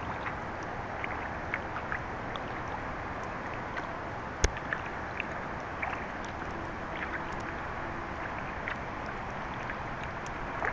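Kayak moving over calm water: a steady wash of water along the hull, dotted with small drips and splashes, and one sharp click about four and a half seconds in.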